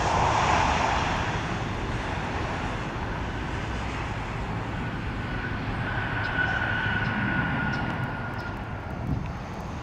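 Jet airliner passing by, its broad engine rush dying away steadily over several seconds, with a faint thin whine about halfway through.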